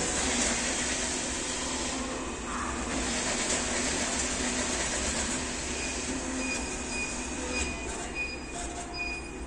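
ATM cash-deposit module running as it counts and checks the deposited banknotes: a steady mechanical running sound. Short high beeps repeat over the last few seconds.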